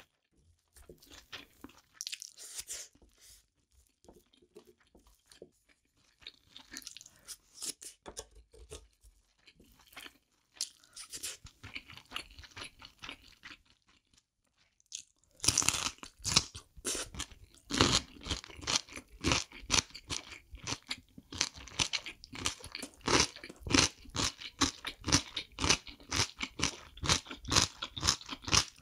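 Close-miked chewing: soft, scattered mouth sounds and light scraping for the first half, then from about halfway loud, crisp crunching several times a second as a piece of kimchi is bitten and chewed.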